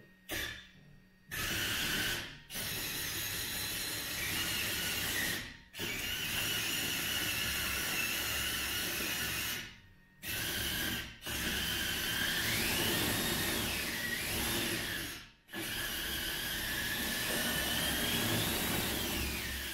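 Brushless electric track-drive motors and gearboxes of a 1:14 RC Volvo EC160E excavator whining as it drives forward and back and steers, with proportional control. The whine comes in a series of runs separated by short stops, its pitch rising and falling with speed around the middle and near the end.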